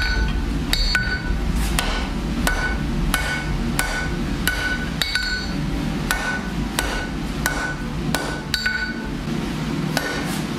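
Hand hammer striking hot metal on an anvil in a steady rhythm, about one and a half blows a second, each blow ringing briefly. A steady low hum runs underneath.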